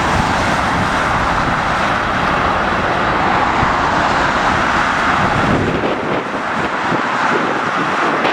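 Jet airliner engine noise, a steady loud rush, with wind buffeting the microphone; the low rumble drops away about two-thirds of the way through.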